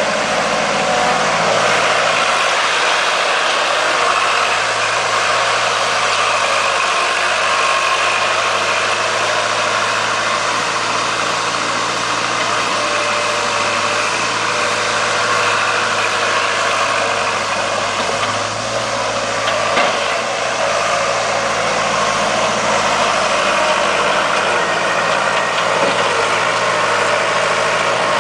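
Skid steer loader's engine running steadily.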